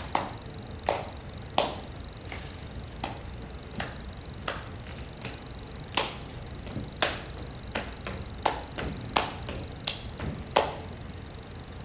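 Footsteps on a stage floor: a string of sharp knocks, roughly one every three-quarters of a second, at walking pace.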